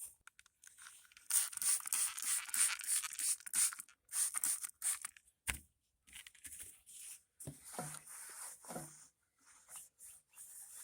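Back-and-forth wiping strokes on the DR wood chipper's housing, a quick run of about four strokes a second for a couple of seconds, then slower, scattered rubbing. A single knock about halfway through.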